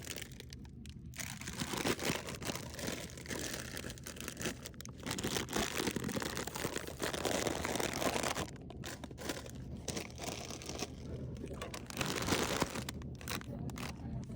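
Plastic packaging crinkling and rustling as it is handled, with irregular crunching and crackling.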